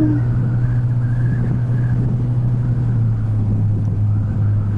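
Honda ADV150 scooter's single-cylinder engine running steadily under way, with wind and road noise; the engine note dips slightly about three seconds in.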